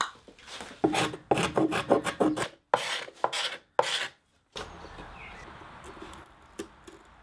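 Rasping strokes of a hand tool shaving filler off a shaped part, about a dozen quick strokes over three seconds or so. About four and a half seconds in it gives way to a faint steady hum with a few light taps.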